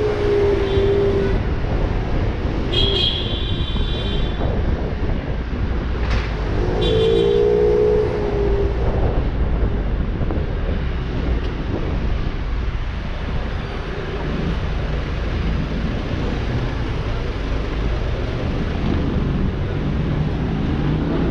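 Aprilia SXR 50 scooter riding through city traffic: steady engine, road and wind noise. Twice a short tone falls slightly in pitch, at the start and about seven seconds in, and two brief high-pitched sounds come about three and seven seconds in.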